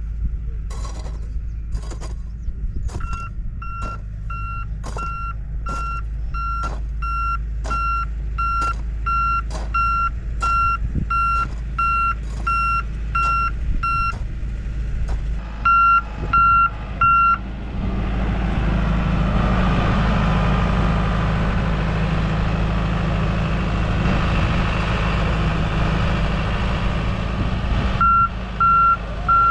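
A tractor's reversing alarm beeping steadily, about one and a half beeps a second, with pauses, over its diesel engine running, which grows louder about two-thirds of the way through as the tractor works the silage pile. Early on, a hoe chops rhythmically into the soil.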